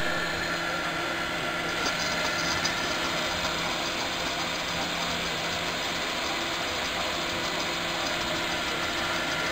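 Steady whirring hum as a filament spool spins freely on a ball-bearing spool holder, running on evenly without slowing.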